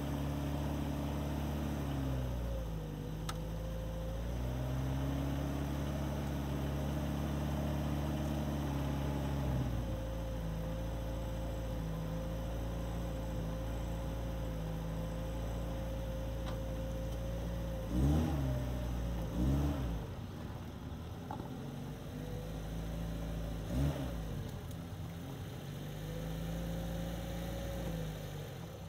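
Motor running with a steady hum whose pitch drifts slowly up and down. Three short swells rise and fall about two-thirds of the way through.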